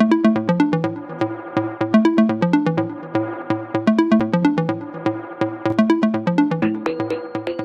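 Electronic music with a steady drum-machine beat and a repeating synthesizer bass line.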